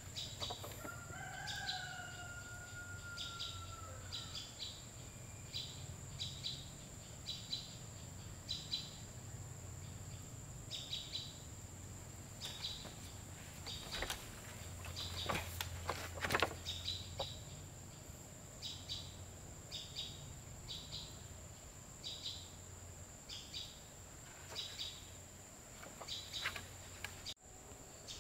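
Forest ambience: a small bird gives a short high chirp about once a second, over a steady high-pitched whine. A rooster crows once near the start, and a few sharp knocks sound about halfway through.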